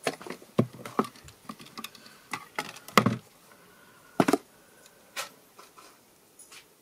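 Scattered light clicks and taps of things being handled on a desk: a pair of glasses picked up and unfolded, and hands moving paper. There are a few sharper knocks, about three seconds and about four seconds in.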